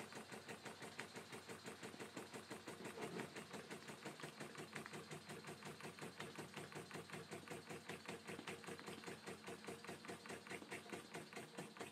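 Small hand-built model steam engine running steadily, its strokes making a quick, even, faint clicking beat of several a second.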